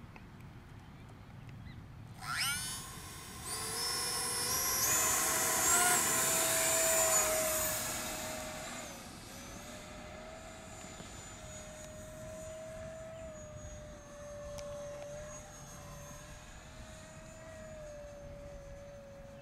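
A 50 mm electric ducted-fan RC jet spools up sharply about two seconds in, its pitch rising to a loud, high whine at full throttle for the hand launch and climb-out. From about eight seconds on the whine is quieter and steady as the jet flies away.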